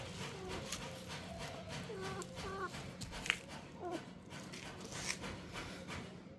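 Kittens mewing: a few short, high mews that fall in pitch, over a faint steady low hum.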